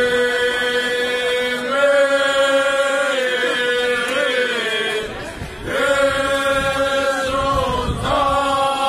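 Group of men singing a Cretan rizitiko table song a cappella, in long, slow, drawn-out held notes. The phrases break off briefly twice, about five and a half and seven and a half seconds in.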